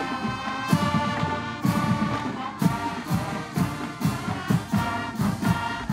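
Marching band playing: brass instruments, euphonium among them, sounding sustained notes over a steady drumbeat.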